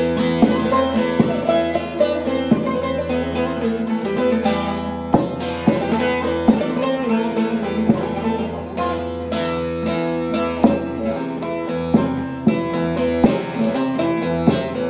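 Handmade walnut-bowl divan bağlama being played: a melody of plucked notes over strings ringing steadily beneath.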